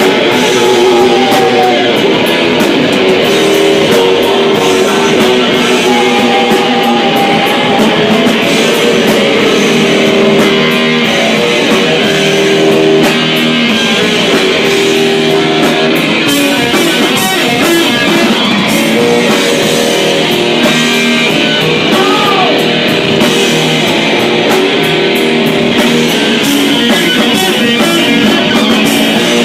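Loud rock music played live: electric guitar and a drum kit.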